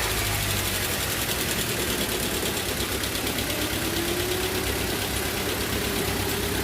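Four-cylinder car engine idling just after starting, with the misfire that is being troubleshot still present.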